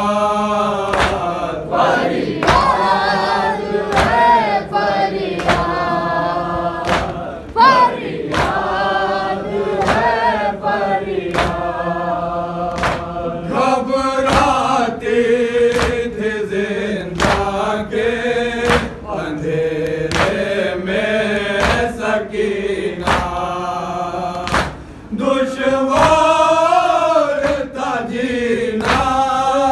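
A group of men chanting a noha, a Shia lament, in unison in Urdu, with a steady beat of sharp slaps from matam, hands beating on chests, marking time under the singing.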